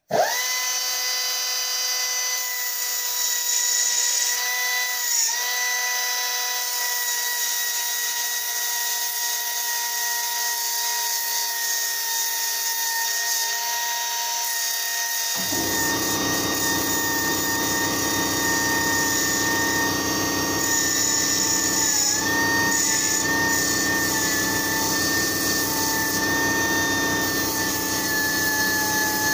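Air-powered belt file (Dynafile) starting abruptly and running at a steady high whine, its pitch dipping briefly a couple of times. About halfway through, the abrasive belt bites into the metal engine mounting bracket and a harsh grinding joins the whine, blending the bracket back for clearance.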